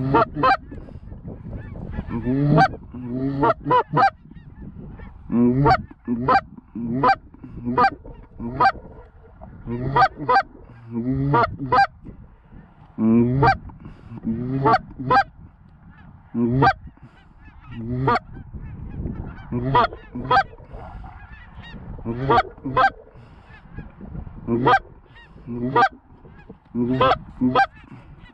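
Loud, close goose honks and clucks in quick runs of two to four notes, repeated over and over with short pauses between runs.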